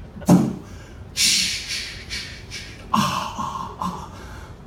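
A man making short non-word vocal noises into a handheld microphone: a few separate grunts or gasps and a sharp, hissing breath about a second in.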